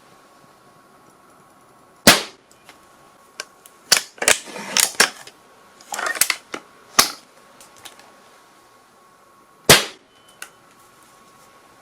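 Gunshot sound effects: a string of single, sharp shots at uneven intervals, with a quicker run of shots in the middle and the loudest cracks about two seconds in and near the end.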